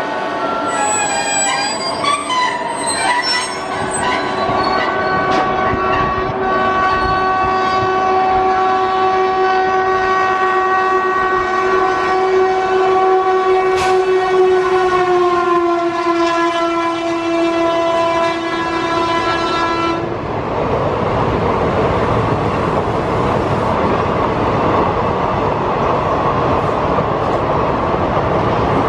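A WAP4 electric locomotive's horn sounds one long continuous multi-tone blast as the train passes at speed. It drops in pitch as the engine goes by and cuts off about twenty seconds in. The express's coaches then run past with steady wheel-on-rail noise.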